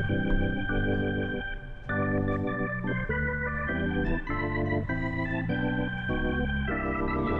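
Background music: held chords that change every half second to a second, with a brief dip in loudness near two seconds in.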